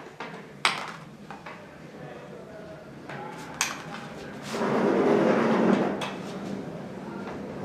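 Shoe cabinet parts being handled during assembly: a few sharp knocks and clicks, and about halfway through a sliding scrape lasting a second and a half.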